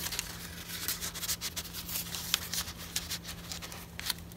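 Paper rustling with many short crisp clicks and scrapes as hands handle paper tags and a file-folder insert in a junk journal. A faint steady hum runs underneath.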